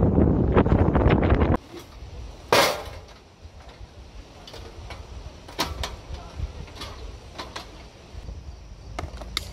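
Wind buffeting the microphone aboard a moving motorboat, which stops abruptly about a second and a half in. Then one loud sharp clack about a second later, followed by scattered light clicks and knocks as a portable two-burner camp stove in its hard case is opened and set up on a picnic table.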